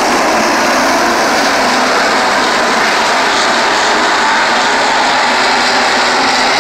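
A field of 305 sprint cars racing together on a dirt oval, their V8 engines making a loud, steady din.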